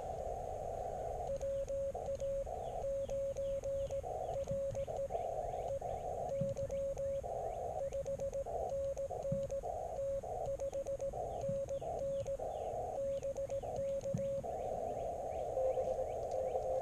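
Elecraft KX3 transceiver sounding Morse code (CW): a single steady tone keyed in dots and dashes from about a second in until near the end, with the receiver's narrow-filter hiss filling the gaps. A fainter Morse signal comes through the hiss near the end.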